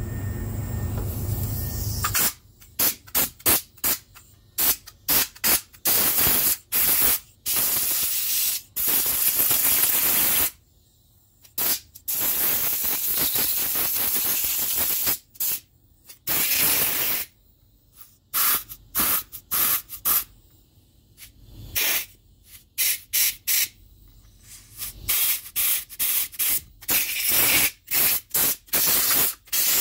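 Compressed air blow gun blasting cleaning water out of an ATV carburetor body fresh from the ultrasonic cleaner: many sharp on-off bursts of hissing air, some brief and some held for a second or more.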